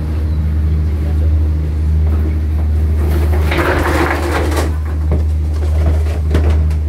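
Fishing boat's engine running, a steady low drone with a faint pulsing beat. About halfway through there is a short burst of rushing noise, and a few light knocks near the end.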